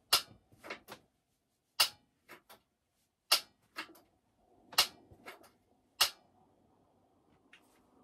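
Sharp clicks of a piezo igniter being pressed again and again, about a dozen in uneven succession over the first six seconds, without the heater catching.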